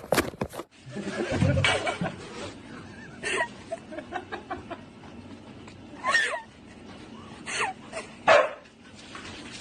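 A dog giving short single barks and yips, a second or more apart, the loudest near the end. It opens with a quick run of sharp clicks before a cut.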